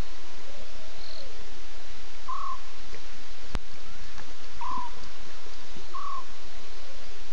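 A small night animal's short call, repeated three times at uneven gaps of a second or two, over a steady hiss. A single sharp click comes just past the middle.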